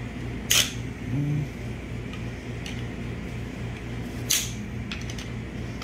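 Two sharp metal clicks, one about half a second in and one about four seconds in, as a pick works at the snap ring holding the 6L80 transmission's Ravigneaux gear set, over a steady low hum.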